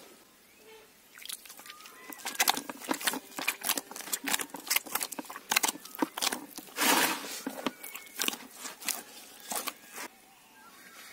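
Hands kneading a large mass of soft, sticky bread dough in a metal basin: irregular squelches and slaps as fists push and fold into the dough, with a longer squish about seven seconds in.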